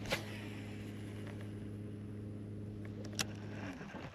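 A steady low motor hum that stops shortly before the end, with two sharp clicks about three seconds apart.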